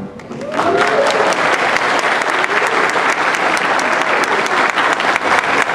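Audience clapping after a children's song ends, with a few voices cheering. The applause swells in about half a second in and keeps up steadily.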